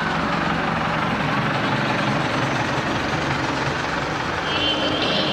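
Camper van's engine running steadily as the van drives along a wet road, with road noise.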